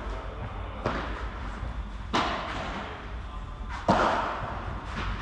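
Padel rackets hitting the ball in a rally: three sharp pops, each ringing briefly in the hall. The last and loudest, about four seconds in, is an overhead swing.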